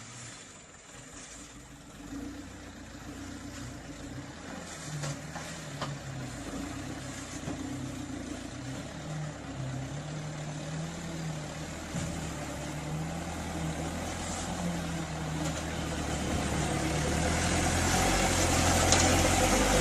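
A vehicle engine running, its pitch rising and falling repeatedly, growing louder over the last few seconds.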